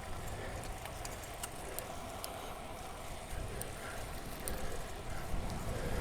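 Bicycle being ridden hard: a steady rush of wind and road noise with scattered faint clicks.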